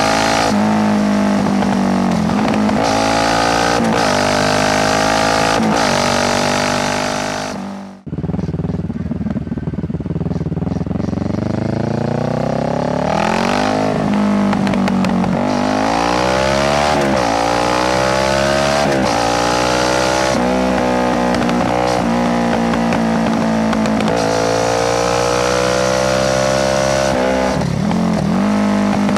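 Kawasaki Z650 parallel-twin engine through an Ixil full exhaust with the dB killer removed, accelerating hard up through the gears. The pitch climbs and drops at each upshift. The sound fades out briefly about a third of the way in, then picks up again with another run of rising revs and shifts.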